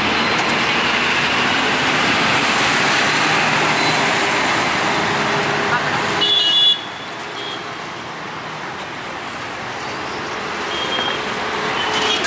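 Busy roadside traffic noise from passing cars and motorbikes. A short horn toot sounds about halfway through, and then the noise suddenly drops to a quieter level.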